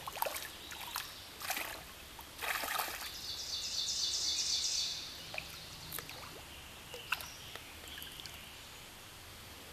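A hooked brook trout splashing and thrashing at the surface of a stream, with several sharp splashes in the first three seconds over the steady trickle of the current. A high-pitched rattle comes in about three and a half seconds in and stops a second and a half later.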